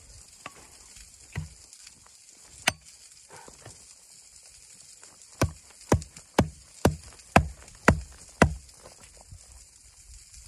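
Hatchet chopping into a wooden stick: a few scattered strikes, then a quick run of seven sharp chops about two a second from about five seconds in.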